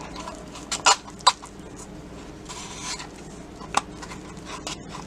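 A spoon or other utensil clinking and knocking against a cup while pancake-mix batter is stirred: a few separate sharp knocks, with a short scraping hiss midway.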